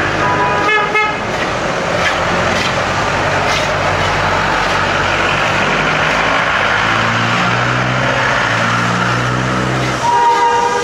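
Street traffic beside a Darjeeling Himalayan Railway steam locomotive: vehicle engines running steadily, a short horn toot about a second in, and the locomotive's whistle sounding near the end.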